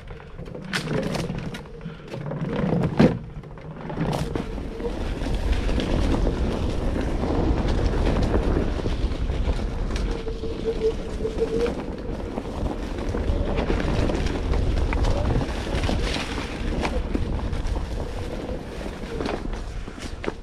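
Wind rushing on the microphone while riding a Onewheel GT over a dirt trail, with the board's hub motor whining faintly in a wavering tone. There are a few sharp knocks in the first four seconds.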